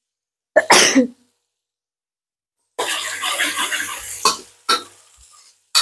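A single sharp cough about half a second in. From about three seconds in, sliced spices and kaffir lime leaves sizzle in hot oil in a wok, with a couple of clinks of the spatula against the pan.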